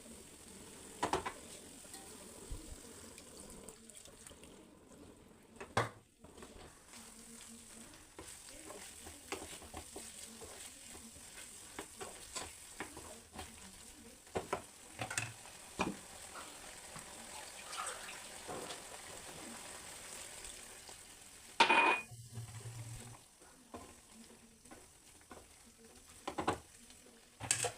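Cauliflower-stalk sabzi frying in a pan with a steady sizzle, stirred with a spoon that knocks and scrapes against the pan now and then. A louder clatter comes about three quarters of the way through.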